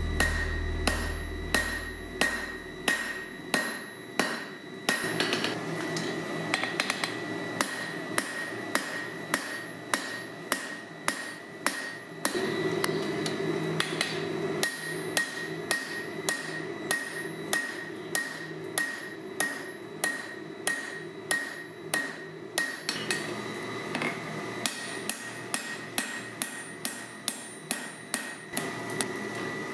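Hand hammer striking steel on an anvil, about two blows a second with short pauses, the anvil ringing between strokes. This is the forging of tongs from forklift tine.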